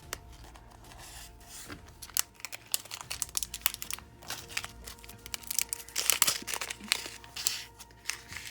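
Small plastic bags of nail-art charms crinkling and rustling as they are handled, in irregular crackles that grow busiest about six seconds in.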